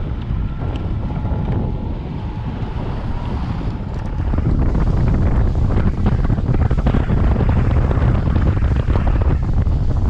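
Small outboard-powered skiff underway: wind buffeting the microphone over the rush of water along the hull and the outboard motor's drone. The sound steps up louder about four seconds in.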